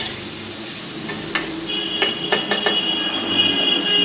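Banana stem and potato frying in a metal kadai while a spatula stirs them: steady sizzle with a few scrapes and taps of the spatula against the pan. A steady high tone runs through the second half.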